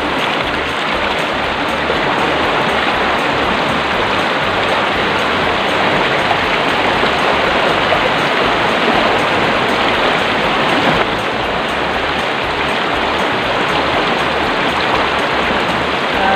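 Water running steadily from a pipe outlet and pouring into a plastic gallon jug as it is filled.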